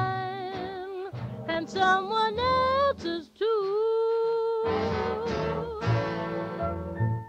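Closing bars of a sung pop ballad on record: a woman's voice slides between notes with vibrato and holds a long note over the band, and the final chord cuts off at the very end.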